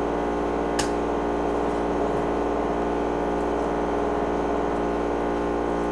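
A steady machine hum made of many even tones, with a single faint click about a second in.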